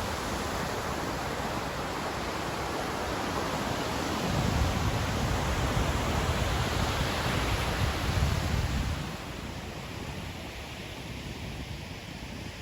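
Ocean surf washing onto a sandy beach: a steady rushing hiss that swells with a low rumble from about four seconds in, then falls away after about nine seconds.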